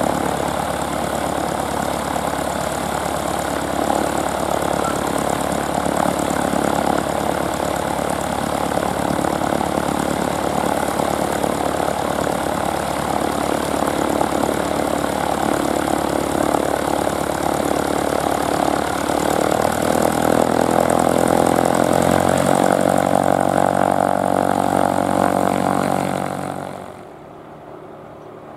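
Cessna 150J's four-cylinder Continental O-200 engine idling, propeller turning. About 20 seconds in the engine speeds up slightly and its hum grows a little louder and clearer. The sound cuts off abruptly shortly before the end.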